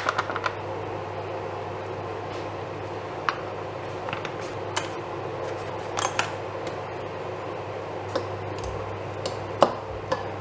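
A fork tapping and clinking now and then against a glass mixing bowl as a dry mix of cocoa powder, ground almonds and oats is stirred, the loudest clink near the end, over a steady low hum.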